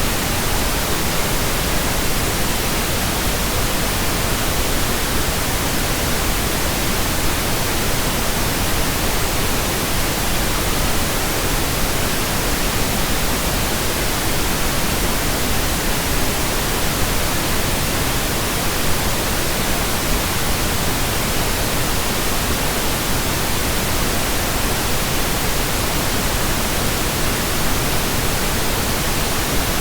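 Steady pink noise: an even, unchanging hiss spread from deep to high pitches, with no tones or separate events.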